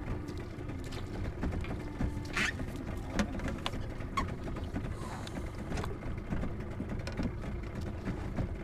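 Water lapping against the hull of a small wooden outrigger fishing boat, with scattered small clicks and knocks as a fishing rod and landing net are handled.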